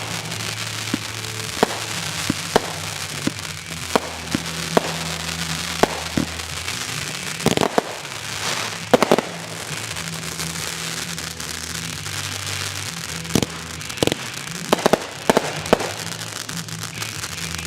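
Fireworks going off: sharp bangs at irregular intervals over a crackling hiss, with a quick cluster of bursts about halfway through and another a few seconds before the end.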